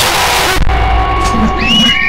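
Loud jumpscare sound effect: a sudden harsh burst of noise, then a deep rumble under sustained eerie tones, with a brief high whistle-like glide near the end.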